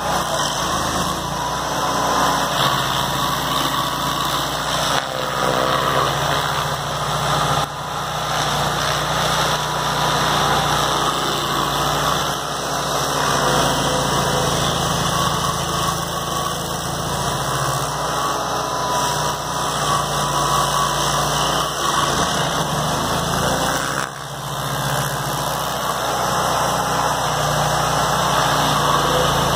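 Stump grinder's gasoline engine running steadily at high speed while its cutter wheel grinds out a large cottonwood root, with a few brief dips in level.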